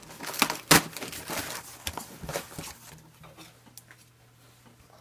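Cardboard shipping box being torn open by hand along its packing tape, with its flaps pulled back. A quick run of sharp rips and scrapes fills the first two or three seconds, then fainter handling of the cardboard.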